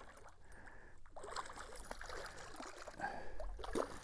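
Faint, irregular water splashing as a hooked catfish thrashes at the surface beside a kayak, a little louder about three seconds in.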